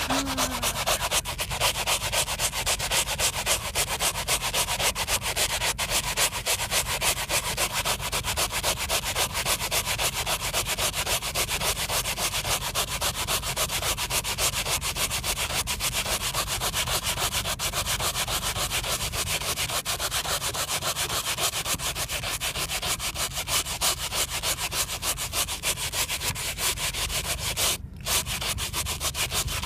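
Stiff bristles of the brush cap on a Turtle Wax OXY Interior 1 foam-cleaner can scrubbing cloth car-seat upholstery, working the foam into a stain. Fast, steady back-and-forth scratching that breaks off briefly near the end.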